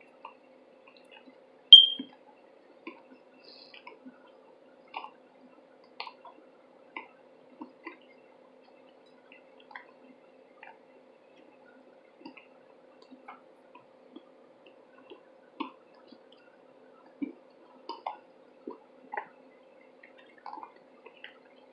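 Wet mouth clicks and smacks from a mouthful of cornstarch being worked into a paste: a scattered run of soft pops, with one sharper, louder click about two seconds in. A faint steady hum runs underneath.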